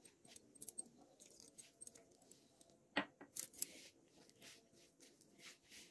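Faint crumbly rustling and scraping of a hand working flour and curd into dough in a glass bowl, with a sharper click against the glass about three seconds in.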